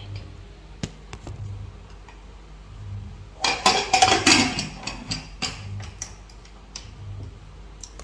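Light taps and clicks of objects being handled, with a dense burst of clattering lasting about a second and a half starting about three and a half seconds in.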